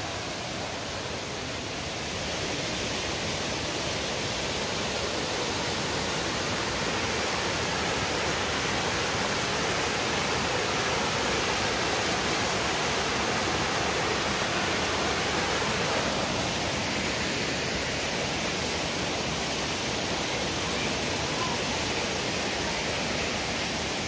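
Small waterfall cascading over several rock ledges: a steady rush of falling water, its tone shifting slightly about two-thirds of the way through.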